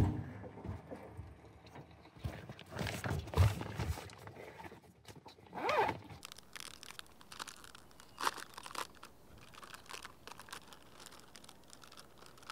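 Plastic snack packaging crinkling and tearing as it is handled and opened, with scattered small crackles and a few louder rustles.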